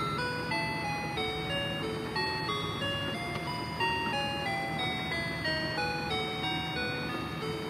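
Toy cash pusher playing its electronic jingle: a simple beeping melody of single notes stepping up and down, over a steady low hum.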